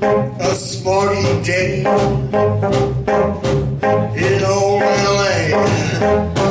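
Homemade one-man-band instrument of bulb horns, bass drum, cymbal and bells being played: horn notes over a steady drum beat.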